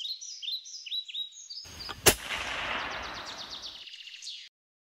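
Small birds chirping in quick repeated calls, then about two seconds in a single sharp gunshot with a long rolling echo that dies away over the next second and a half. The birdsong goes on after the shot and everything cuts off sharply near the end.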